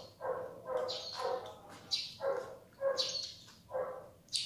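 Close-up chewing and lip-smacking of a mouthful of vegetable omelette: wet mouth sounds in a steady rhythm, about two a second.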